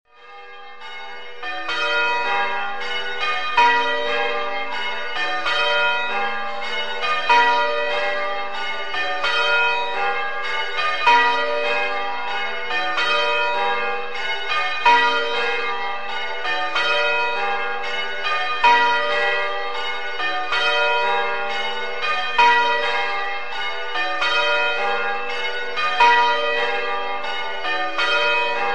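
Church bells ringing: several bells of different pitch struck one after another in a repeating round, with one loud stroke coming round about every four seconds. The ringing builds up over the first second or so.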